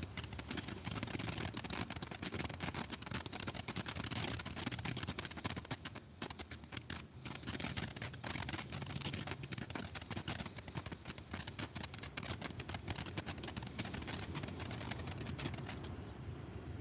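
Ground fountain firework spraying sparks with a dense, fast crackling and hiss, which drops out briefly about six seconds in and stops near the end.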